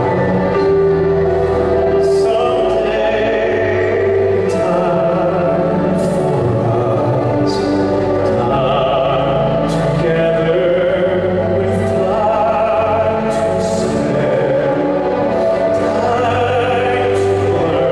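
Music with a sung vocal line, long held notes over sustained accompaniment at a steady loudness.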